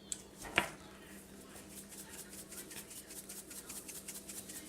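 A light click and then a sharper tap of a container, followed by a steady, rhythmic scratching at about five strokes a second as glitter slime ingredients are worked in a container.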